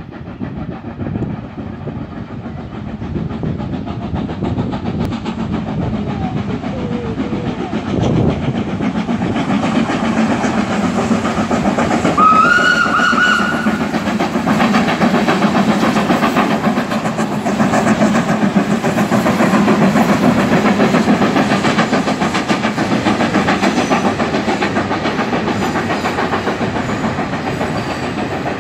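Ex-NCC WT class 2-6-4T steam tank locomotive No. 4 working hard up a gradient with a passenger train, its exhaust beating rapidly and growing louder as it comes past. About twelve seconds in, a whistle sounds once, rising slightly in pitch, for about a second and a half.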